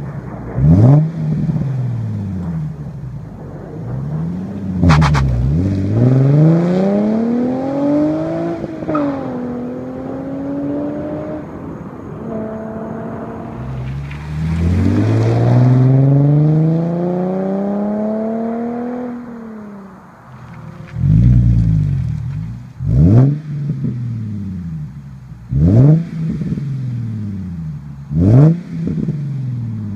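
Infiniti G37's 3.7-litre V6 through a Tanabe aftermarket exhaust, revved in quick blips at first, with a sharp crack about five seconds in. Then come two long runs of rising engine pitch, each dropping away at its end, and near the end quick short revs again.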